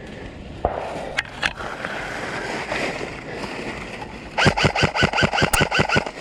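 An airsoft gun fires a rapid burst of about fourteen shots, roughly eight a second, starting about four seconds in. Before it there is an even rustling noise with a few sharp clicks.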